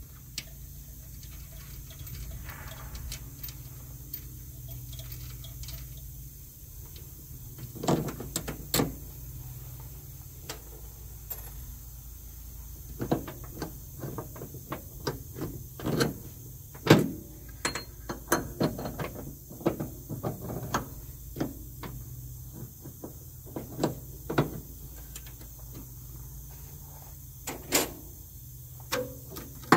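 Scattered knocks, clanks and clicks of hand tools and metal parts being handled during truck cab suspension work, over a steady low hum; the knocks come more often in the second half.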